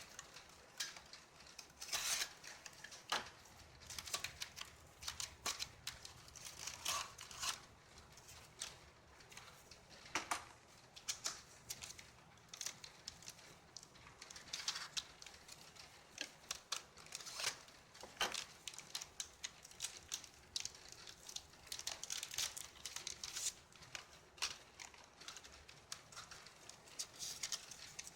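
Hands handling packaging and small hardware: irregular clicks and taps with bouts of crinkling and rustling.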